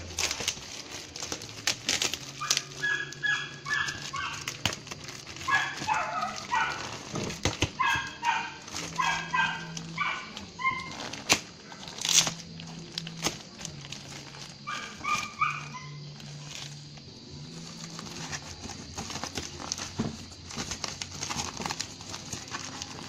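Plastic packaging crinkled and pulled open by hand, with sharp rustles and snaps. A dog barks in repeated bursts through the first half and once more later on, over faint music with low held notes.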